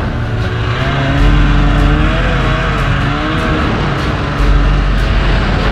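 Ski-Doo MXZ snowmobile engine running under throttle, heard from the rider's seat, its pitch rising and falling as the rider works the throttle. A deeper rumble swells about a second in and again near the end.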